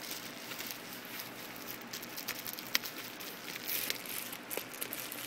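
Light crackling and rustling of packaging handled by hand: a bubble-wrap pouch and paper sheets, with one sharper click nearly three seconds in.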